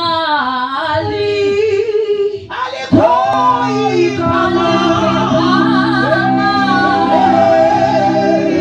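A small group of women singing a gospel song together into microphones. About three seconds in it gets louder and steady keyboard chords come in under the voices.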